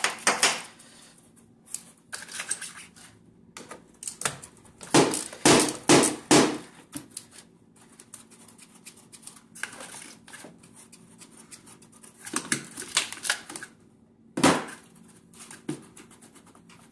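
Hand socket ratchet clicking in several short runs as a 10 mm socket loosens the nut on a car battery terminal.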